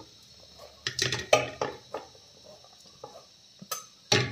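A steel knife blade scraping chopped mutton liver, spleen and fat off a plastic cutting board into a steel karahi, in a run of short scrapes and knocks about a second in and a couple more near the end.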